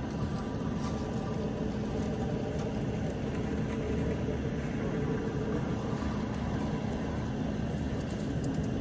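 An engine idling steadily with a constant low hum.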